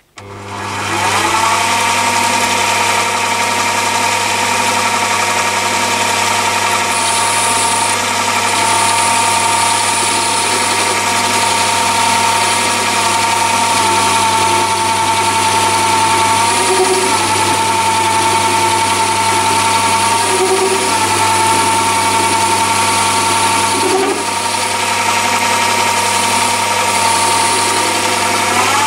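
Metal lathe starting up, its motor whine climbing to speed in the first second, then running steadily while a carbide insert tool cuts the spinning workpiece. The whine rises in pitch right at the end.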